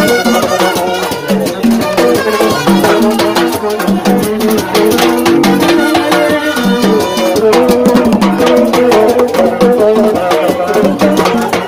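A Haitian rara band playing live: wooden hand drums slapped with the palms in a fast, dense rhythm, under a repeating pitched horn line, with rattles.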